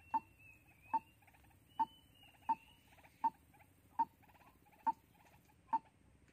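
White-breasted waterhen (decoy bird) calling: a monotonous series of short, sharp notes, about one every 0.8 seconds, with softer rapid trilled notes between them. A faint wavering higher whistle runs through the first few seconds.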